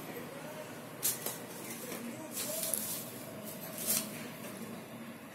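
A metal spatula scraping and stirring potatoes frying in an iron kadhai: three short scrapes over a low steady background.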